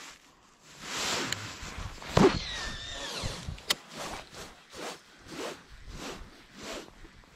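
Okuma Citrix baitcasting reel winding in line, a whirring that comes in even pulses about twice a second. Before it come a swishing rush and one sharp knock, the loudest sound, about two seconds in, followed by a brief whine.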